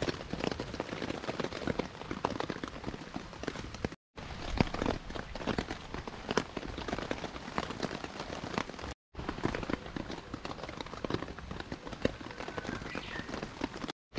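Rain pattering steadily on a tarp overhead: a dense, irregular spatter of drops. The sound cuts out completely for a moment twice, about four and nine seconds in.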